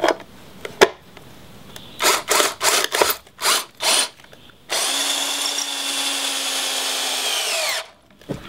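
Power drill driving a screw into an aluminium door threshold: a few short trigger bursts, then a steady run of about three seconds that winds down in pitch as the trigger is released.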